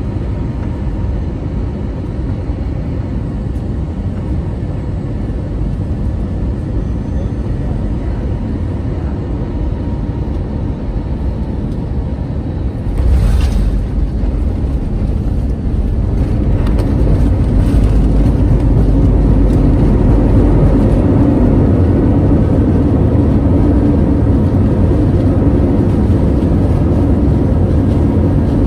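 Airliner cabin noise during landing: a steady rumble, then a sudden jolt of touchdown about thirteen seconds in, followed by louder, heavier engine and runway rumble as reverse thrust and braking slow the plane on the runway.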